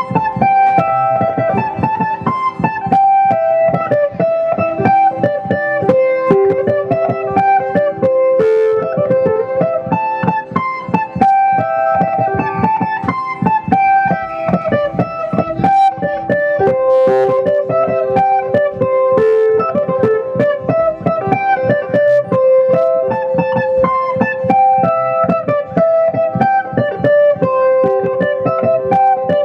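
Andean folk dance music with fast, rhythmic strumming on plucked string instruments and a repeating melody over an even beat.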